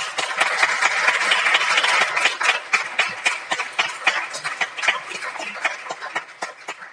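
Audience applauding, many hands clapping at once, loudest at first and then slowly dying down.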